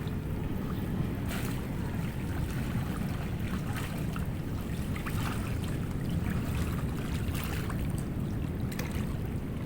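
Steady wind rumble on the microphone over moving water, with scattered light splashes.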